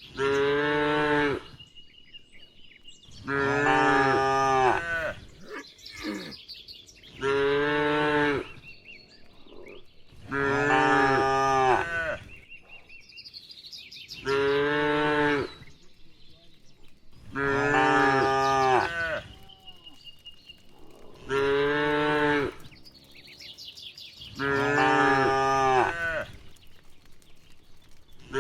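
Cattle mooing: eight long, drawn-out moos, evenly spaced about every three and a half seconds and almost identical in shape.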